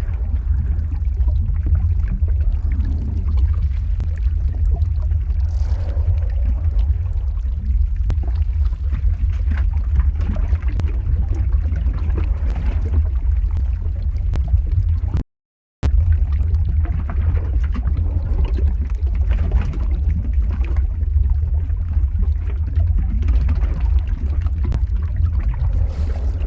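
Lava-flow ambience sound effect: a steady deep rumble with scattered crackles and ticks. It cuts out completely for about half a second a little past the middle, then resumes.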